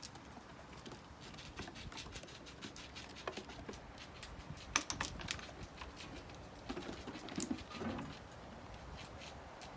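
Squirrel claws pattering and clicking on wooden deck boards as the squirrels scamper about: a scatter of light, quick ticks, loudest around the middle.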